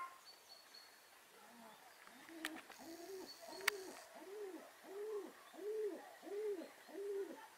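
A series of about seven soft, low hoots, one every two-thirds of a second or so, beginning about two seconds in and growing louder, with a couple of faint clicks early on.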